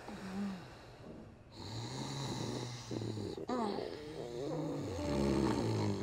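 A sleeping woman snoring: a long low snore, a brief wavering, higher-pitched snort in the middle, then more snores that are loudest near the end.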